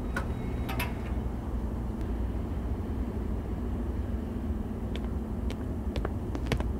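Steady low background rumble, with a short cluster of sharp clicks about a second in and a few single clicks near the end.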